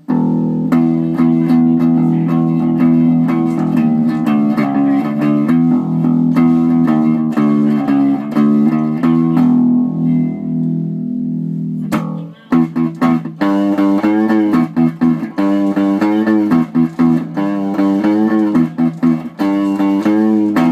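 Rickenbacker 4003 four-string electric bass being played: a run of plucked notes, a brief break about twelve seconds in, then a faster passage of quick notes that stops near the end.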